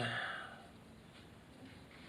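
A man's word trailing off with a short breath, then a pause of faint room tone.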